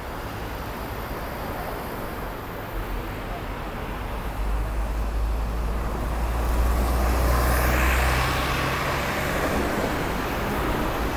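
City road traffic: a steady rush of passing cars and buses. A heavy vehicle's deep engine rumble builds from about four seconds in and passes close, loudest a little past the middle, before easing slightly.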